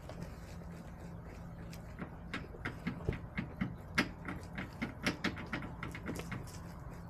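Backyard hens pecking and scratching in the sandy litter close to the microphone: an uneven run of quick, sharp taps, several a second, starting about two seconds in and easing off near the end, over a steady low hum.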